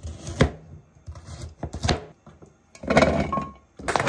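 A kitchen knife chops carrots on a plastic cutting board, with several separate sharp strikes. Near the end a short rough whirring follows as the carrot is minced in a small hand-operated food chopper.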